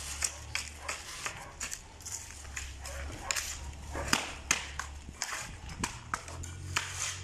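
Hand tamper repeatedly knocking and scraping as it packs damp soil-cement mix, full of unshredded trash, into a wooden block mould: a string of uneven sharp knocks, several a second.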